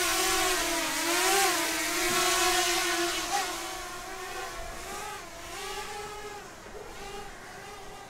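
DJI Mini 2 quadcopter's propellers whining as it lifts off and climbs. The pitch wobbles up and down, and the sound fades as the drone rises away.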